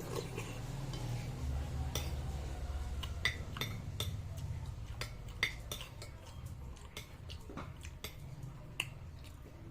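Spoon clinking now and then against a bowl of lomi noodle soup during eating, a series of light, irregular clinks over a low steady hum.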